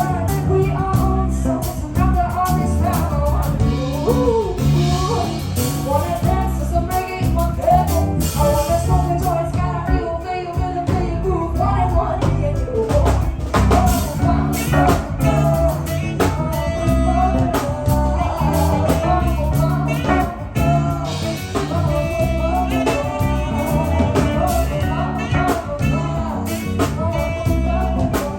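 A live band playing a song, with drum kit, bass and guitar under singing.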